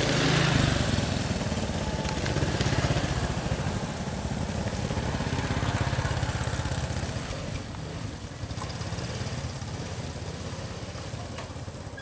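A small engine running, loudest in the first few seconds and easing off after about seven seconds.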